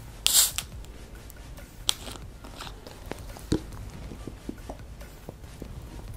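Cap twisted off a plastic bottle of carbonated soda with a short, sharp hiss of escaping gas, followed by scattered small clicks and knocks of the bottle and mouth sounds as the soda is drunk.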